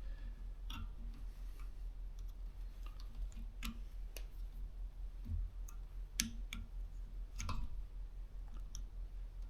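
Irregular light clicks and taps from hands and tools working on an air compressor's pressure switch while it is being fitted, about nine or ten scattered clicks over a low steady hum.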